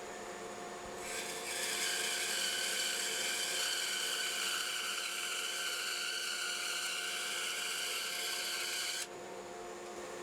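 Bandsaw running, with a steady hum, and cutting a strip about 3/16 to 1/4 inch thick off the bottom of a glued-up hardwood block against the fence to flatten it. The cut starts with a loud hiss about a second in and ends abruptly near the end, leaving the saw running free.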